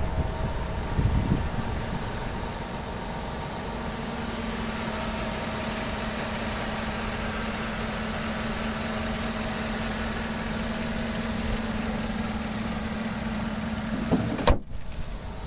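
2013 GMC Sierra 1500's gasoline engine idling steadily, heard from the open engine bay, with a steady whining tone over it. A single sharp knock near the end.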